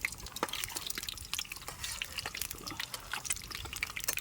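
Water dripping and splashing in irregular small drops.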